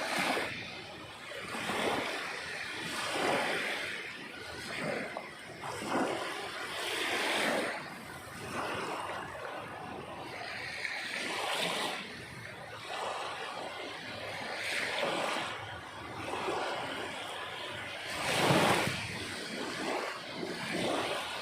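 Sea waves breaking and washing on the shore, a steady rush that swells and falls back every couple of seconds, with one louder breaker about three-quarters of the way through.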